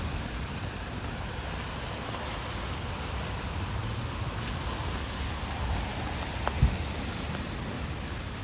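Steady hiss of falling rain, with a single short low thump about six and a half seconds in.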